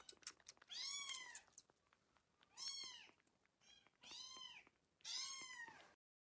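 A young kitten mewing four times in high, thin calls, each rising and then falling in pitch, with faint small clicks in between at the start.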